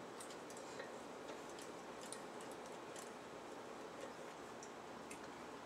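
Faint, irregular small clicks and ticks as the Panavise's head and jaws are handled and adjusted, over low steady room noise.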